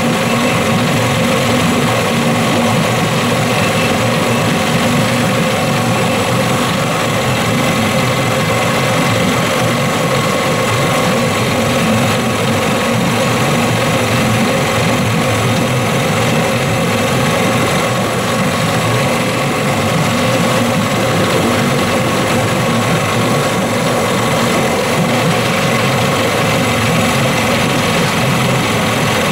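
Johnson 15 hp two-stroke outboard motor running steadily at a constant speed.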